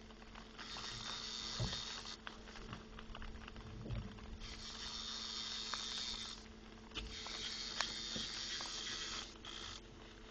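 Fishing reel cranked fast in three long spurts, taking in line as the boat closes on a hooked fish, over the steady hum of the boat's motor.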